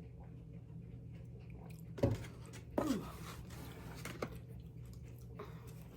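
A person chewing food close to the microphone, with two short sharp mouth sounds about two and three seconds in, over a steady low hum.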